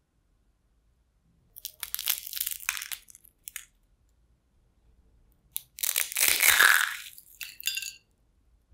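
Crispy deep-fried shredded-potato nest being broken apart and crumbled by hand: dry crackling crunch in two bouts, about a second and a half in and a louder one about six seconds in.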